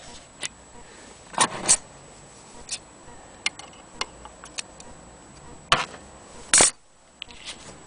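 Steel scissors clicking open and snipping sewing thread, among scattered light clicks of handling. A few sharper snaps stand out: two about a second and a half in, and two more near the end.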